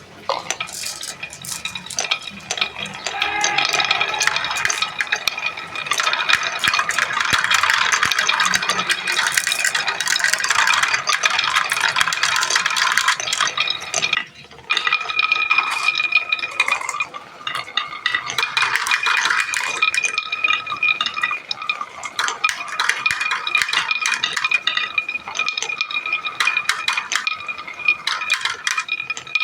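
Many marbles rolling and clattering down a marble run's tracks and pipes: a dense, continuous rattle of clicks with a steady ringing tone. It drops out briefly about halfway through, then resumes.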